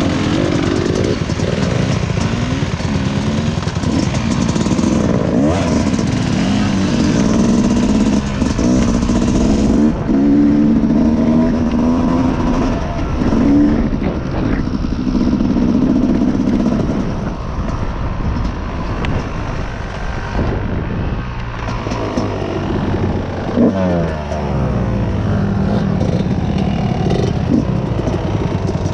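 Dirt bike engine running under load while being ridden, its pitch rising and falling with the throttle. Near the end it drops sharply and climbs again.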